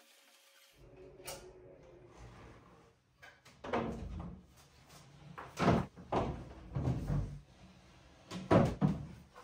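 A white two-drawer console table being moved and set down on a tiled floor: a series of about six knocks and thumps, starting about three and a half seconds in.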